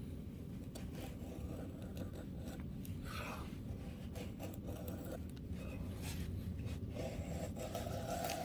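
Morakniv Companion knife blade shaving thin curls down a stick of wood to make a feather stick: a series of separate scraping strokes, about one a second, over a steady low rumble.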